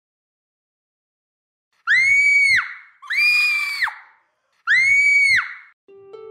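Three high-pitched screams, starting about two seconds in, each under a second long, held at one pitch and falling off at the end.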